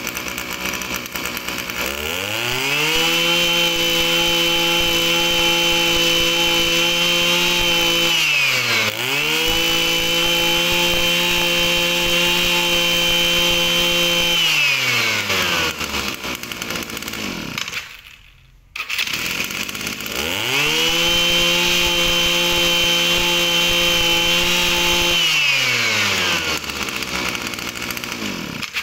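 Echo 315 brush cutter's 31cc two-stroke engine idling, then revved to full throttle and held for several seconds, three times over, dropping back toward idle between each rev.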